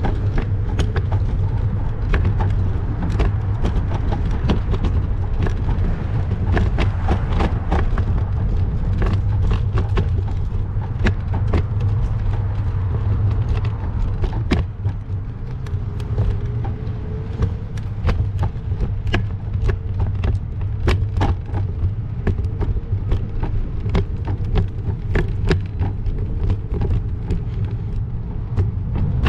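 Steady low rumble of wind buffeting the microphone during a bicycle ride, with frequent sharp clicks and knocks from the bike and camera rattling over the street.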